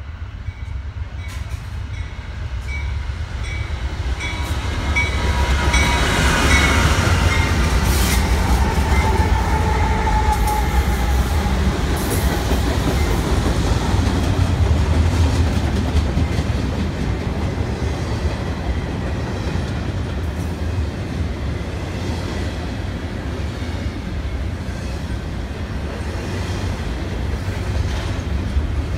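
BNSF freight train's diesel locomotives approaching and passing, their rumble growing loud over the first several seconds. Then double-stack intermodal container cars roll by with a steady heavy rumble of wheels on rail.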